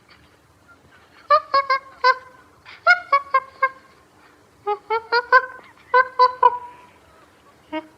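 Chimpanzee calling in short, pitched hoots, given in quick runs of three to five calls, three runs in all, with brief pauses between them.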